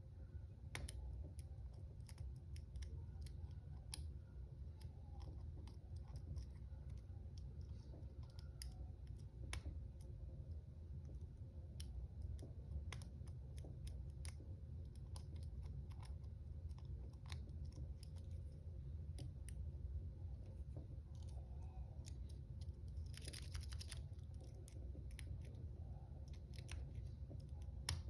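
Lock pick rake scraping and clicking in the keyway of a Master Lock No. 140 40 mm brass padlock: many light, irregular metal clicks as the rake is worked over the pins, with a denser rasping scrape late on. The lock stays shut.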